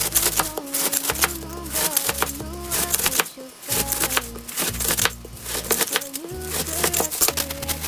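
Background music with a singing voice over a bass line, with frequent sharp clicks throughout.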